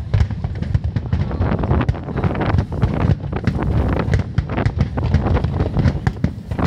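Fireworks going off in a dense, irregular string of bangs and crackles, with wind rumbling on the microphone.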